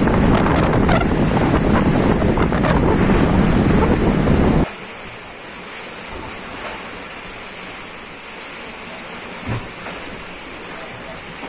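Wind buffeting the microphone over the rush of sea water past a sailing catamaran under way. About four and a half seconds in it cuts to a quieter steady wash of wind and water heard from inside the cabin, with one soft thump near the end.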